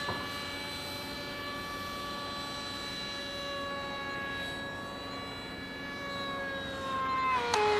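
Electric ducted fan of an RC model aircraft whining steadily in flight. Its pitch sags slightly, then drops and jumps back up near the end.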